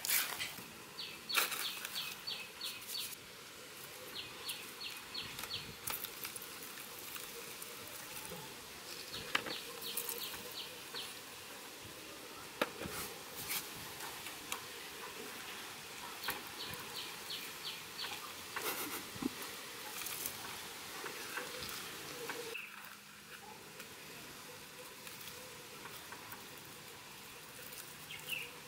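An insect chirping in short runs of quick, evenly spaced high pulses, about four a second, repeated four times. Scattered clicks and light rustling come from charred fish being peeled apart by hand on banana leaves.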